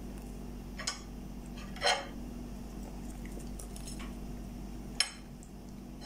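A metal fork clinking against a ceramic plate three times: about a second in, around two seconds in, and sharply at five seconds.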